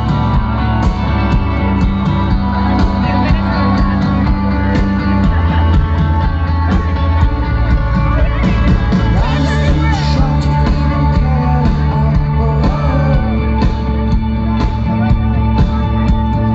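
Live rock band playing: drums hitting steadily, held bass notes changing every few seconds, and guitar, with a lead voice singing over it, clearest in the middle of the stretch.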